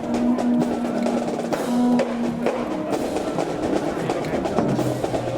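Marching band playing in a parade: a steady drum beat with held low brass or wind notes.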